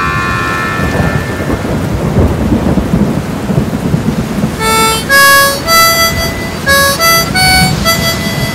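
A harmonica chord fades out, then a rolling rumble of thunder with rain noise for a few seconds, before a harmonica melody of single held notes starts about five seconds in.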